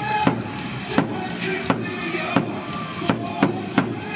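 Volleyball arena crowd cheering to a steady beat of sharp claps, about one every three quarters of a second, over chanting and music.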